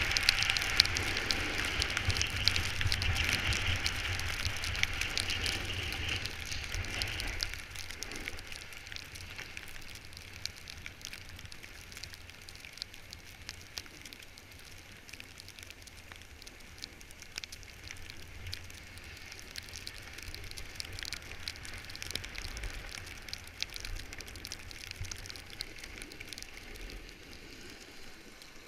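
A snowboard sliding and scraping over packed, crusty snow, a steady crackly hiss, with wind rumbling on the microphone. It is loudest for the first seven seconds or so, then drops to a quieter, thinner scrape with scattered crackles.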